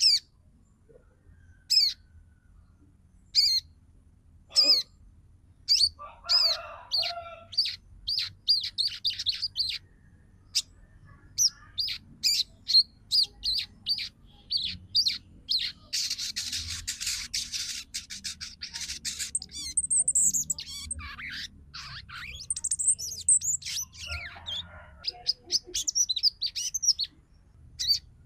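Female sogon sunbird calling: sharp, high chirps, widely spaced at first, then quickening into fast chittering runs, with a dense burst of chatter about halfway through. This is the female's call to males, used to provoke them into singing.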